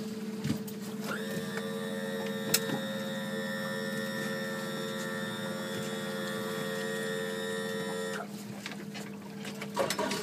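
Steady low hum of the boat's motor, joined about a second in by the even whine of a small electric motor, which runs for about seven seconds and stops abruptly.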